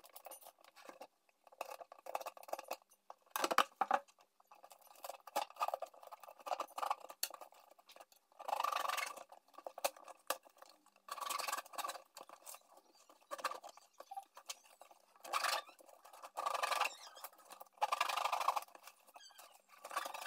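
Packing tape and cardboard being torn by hand as a taped cardboard parcel is opened: small scrapes and clicks at first, then about half a dozen short scratchy rips in the second half.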